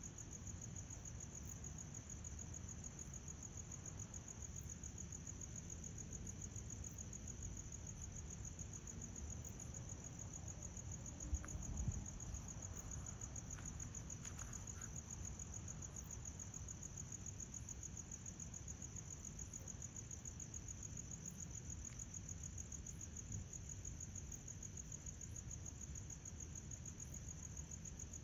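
Crickets chirping in a steady, high-pitched continuous trill over a low rumble, with a short knock about eleven seconds in.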